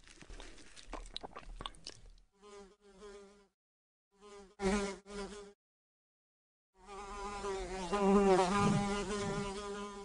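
Fly buzzing: a few short bursts, a pause, then a long buzz that wavers in pitch. It opens with a couple of seconds of faint crackling.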